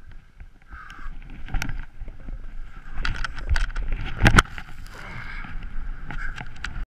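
Skis scraping and chattering over chunky, tracked-up snow on a steep run, with a low rumble underneath and several sharp clacks, the loudest about four seconds in. The sound cuts off suddenly just before the end.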